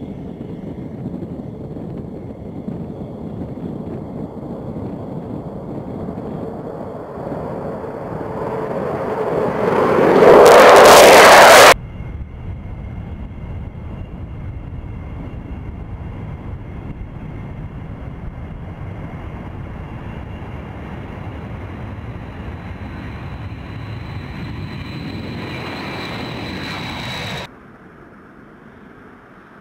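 Military jets at full takeoff power. An EA-6B Prowler's twin turbojets grow to very loud as it passes, about ten seconds in, then cut off abruptly. Next a B-52 Stratofortress's eight jet engines run steadily with a high whine rising slightly in pitch, cut off a couple of seconds before the end, leaving a much fainter jet sound.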